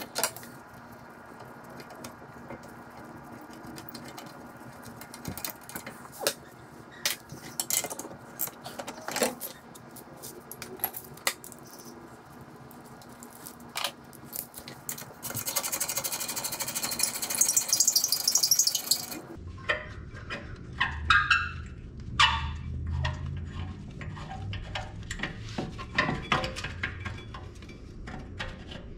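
Hand tools and metal brake parts clicking and clinking as a ratchet and caliper hardware are handled, in scattered sharp knocks. A hiss runs for a few seconds past the middle.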